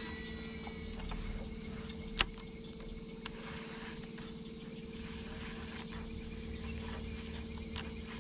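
Steady low hum, with a sharp click about two seconds in and a fainter one about a second later as a baitcasting reel and lure are handled.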